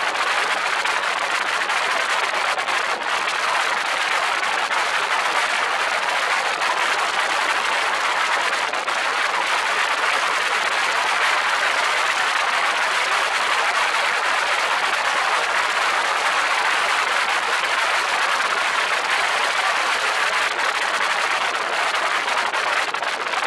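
Steady, even rush of wind and airflow over the microphone of a camera on a small float aircraft in flight.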